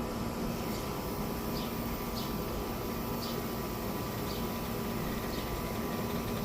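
Car jack being pumped to lift the car, a faint short squeak about once a second with each stroke of the handle, over a steady background hum.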